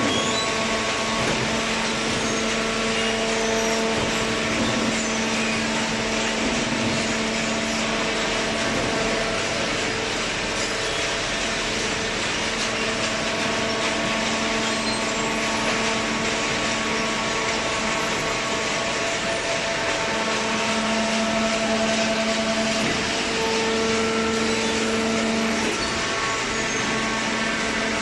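Steady drone of a running horizontal hydraulic waste-paper baler line: the electric motor and hydraulic pump hum with several held tones over a rushing noise, swelling slightly now and then.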